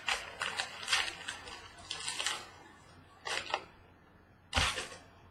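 Trading-card packaging being handled and torn open: a quick run of crinkling rustles, then two sharper rustles, the second the loudest, near the end.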